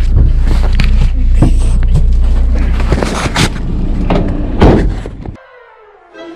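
Knocks and rustling of a body-worn camera as the wearer climbs out of a delivery van, over a steady low rumble, then one loud thump of the van door shutting about four and a half seconds in; the sound then drops away abruptly.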